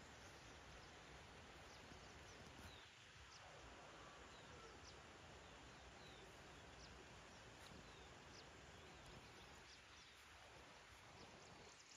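Near silence: a faint, steady outdoor hiss with scattered short, faint high chirps or ticks.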